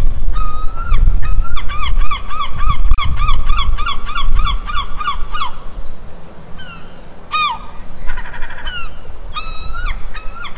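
Gulls calling: a fast run of repeated pitched cries, about four a second, thinning to a few single calls after the middle, over a steady low rumble.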